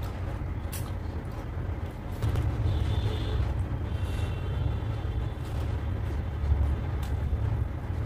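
A person eating luchi with mutton curry by hand, with faint clicks of chewing and lip smacks over a low steady rumble.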